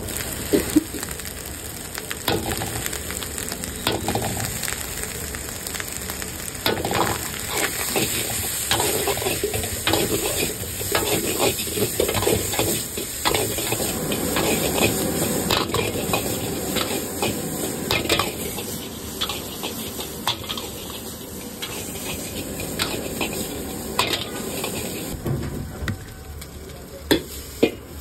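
Fried rice sizzling in a hot wok while a metal ladle stirs and scrapes it, with many sharp clanks of the ladle against the wok. The sizzle and clanking die down near the end.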